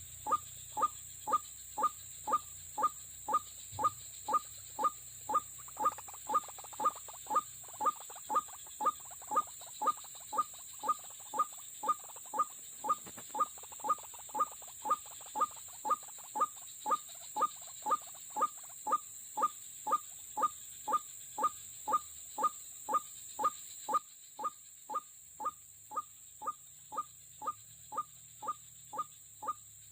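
White-breasted waterhen (ruak-ruak) calling: a monotonous series of short croaking notes, about two a second, each dropping in pitch.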